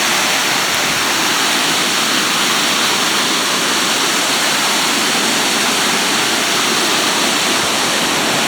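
Waterfall on a creek in full flow after heavy rain, its water rushing in a loud, steady roar.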